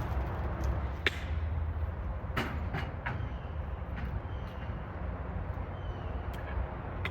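A steady low engine rumble with a few sharp knocks or clanks over it, the clearest about a second in and around two and a half seconds in.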